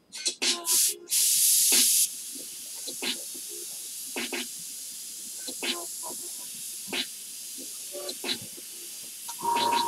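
Airbrush spraying acrylic paint as a steady high hiss, with a louder blast of air about a second in. Short sharp clicks are scattered through it.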